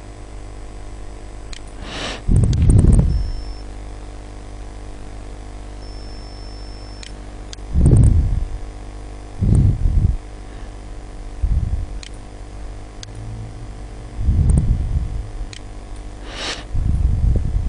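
Steady electrical hum and faint fan-like noise from a desktop recording setup, broken about six times by short, muffled low rumbles on the microphone, with a few faint clicks.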